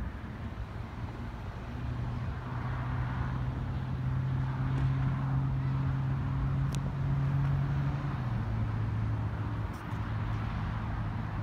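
A motor vehicle's engine humming, growing louder over the first few seconds and dropping in pitch about eight seconds in.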